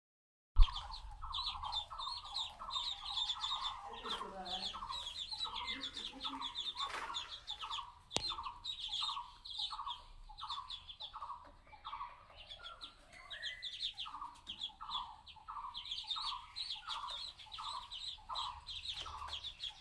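Two-day-old ducklings peeping: a steady run of short peeps, each falling in pitch, about one or two a second, with more peeps from other ducklings overlapping them. A sharp click comes about eight seconds in.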